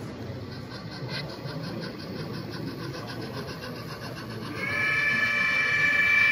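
Model steam locomotive's sound-unit whistle blowing one long, steady chord, starting about two-thirds of the way in, over a steady background murmur.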